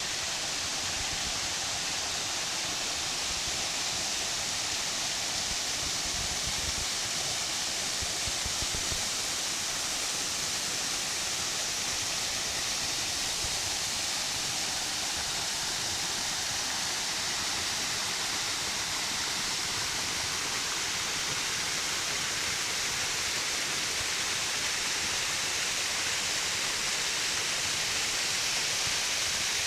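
Small waterfall rushing: a steady hiss of falling water.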